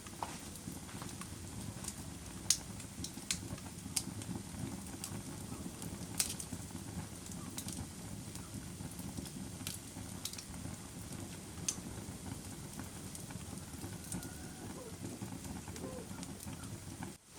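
Wood fire burning in a fireplace: a steady low rumble of flames with sharp crackles and pops scattered every second or two, the loudest about two and a half seconds in.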